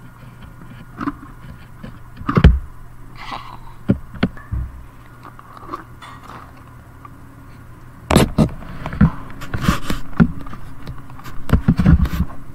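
A plastic coin-counting jar full of coins being handled and opened: scattered knocks and scrapes, one loud knock about two and a half seconds in, then a long run of coins clinking and rattling over the last four seconds as it is emptied.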